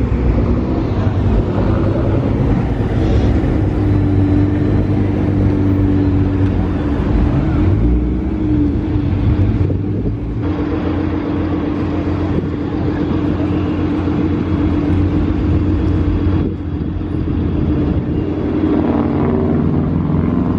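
Nissan GT-R twin-turbo V6 engines idling at close range: a steady, loud low exhaust drone whose pitch shifts slightly now and then.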